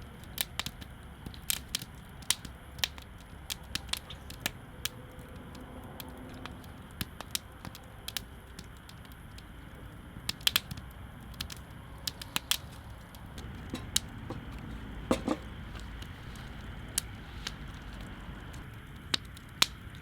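Wood campfire crackling, with irregular sharp pops and snaps over a low steady hiss.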